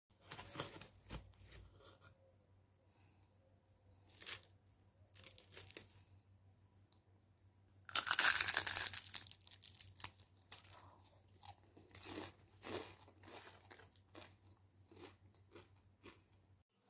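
Crisp fried keema samosa pastry crunching in a series of short, irregular crunches. The loudest and longest crunch comes about eight seconds in.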